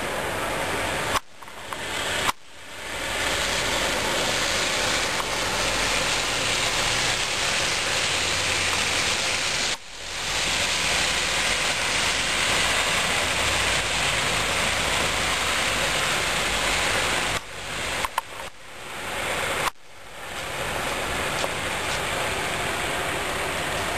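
Steady hiss of heavy wet snowfall pattering on surfaces, much like rain. It cuts out suddenly several times, once early, once near the middle and three times near the end, and swells back in each time.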